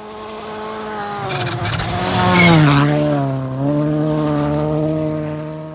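Modern rally car at full race pace, its engine growing louder as it comes up and peaking about halfway through. The engine note then falls in pitch and holds steady, and the sound drops away near the end.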